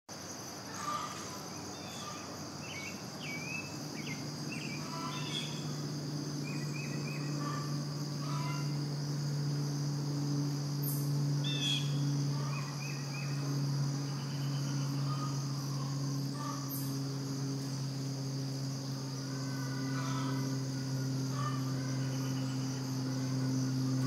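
Early-morning farm ambience: a steady high-pitched insect chorus, with scattered short bird chirps and a low steady hum that swells in about six seconds in.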